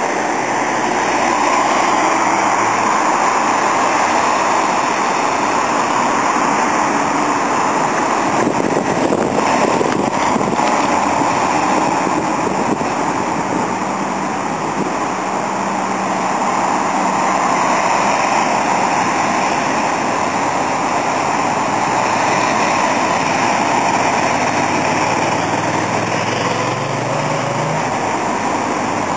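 Vans and light trucks of a vehicle convoy driving past: a steady rush of engine and tyre noise, with one engine speeding up near the end.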